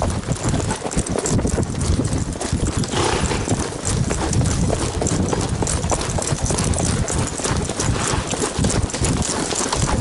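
Horses' hooves clip-clopping at a trot on a dirt trail, a fast, continuous patter of hoofbeats over a low rumble.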